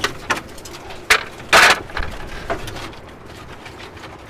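A wind-toppled pigeon coop being moved by hand: several knocks, then a loud crunching scrape about a second and a half in, with lighter clatter after.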